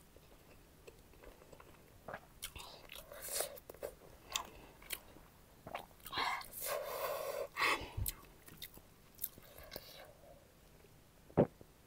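Close-miked eating: a person chewing and biting food, with a run of short mouth clicks and smacks and a longer stretch of chewing noise near the middle.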